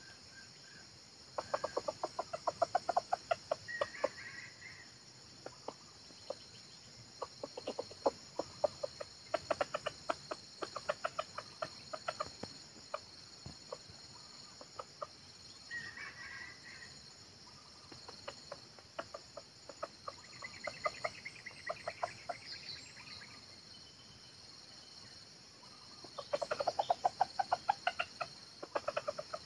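Red junglefowl clucking in long runs of rapid clucks, three main bouts with short higher calls between.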